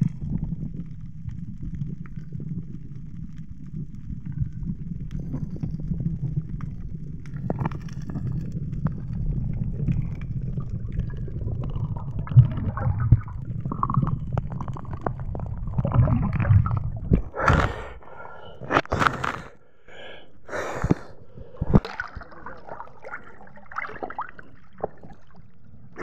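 Muffled low rumble of water moving around an underwater camera as a diver swims up, then, about two-thirds of the way in, a run of sharp splashes and breaths as the diver breaks the surface.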